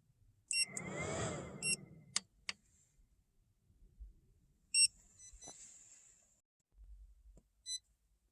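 Short high electronic beeps, four times, with a louder noisy sound lasting about a second between the first two.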